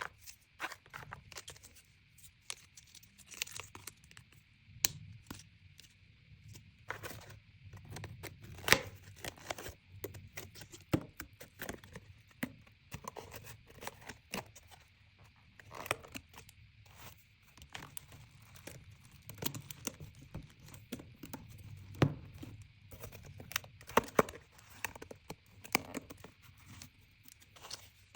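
Packaging being torn open and crinkled by hand during an unboxing, in irregular rustles with scattered sharp clicks and taps.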